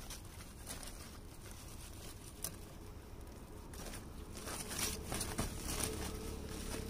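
White woven plastic sack being handled and pulled open, rustling and crinkling in quick irregular bursts that grow busier in the second half.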